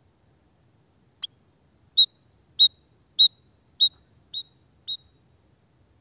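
White-headed munia calling: a short faint chirp, then six short, high call notes evenly spaced about two-thirds of a second apart, the last two quieter.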